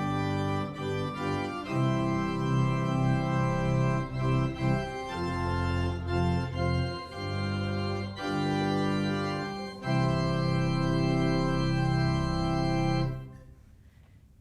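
Organ playing sustained chords that change every second or so, ending on a long held final chord that is released about a second before the end.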